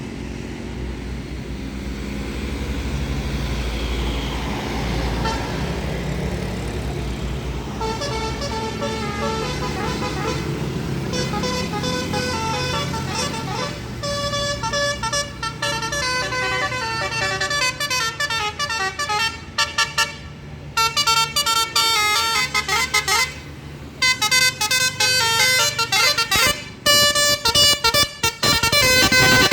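A low engine rumble, then a tour bus's Basuri telolet musical horn plays fast melodic runs of toots over and over. The horn gets louder about halfway through, with short breaks between runs.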